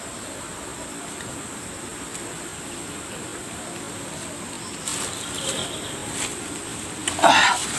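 Steady buzz of insects, with a short louder burst of sound near the end.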